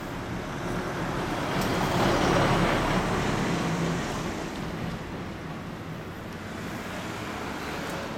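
A road vehicle passing: traffic noise that swells to its loudest about two to three seconds in and then fades, over a steady low hum.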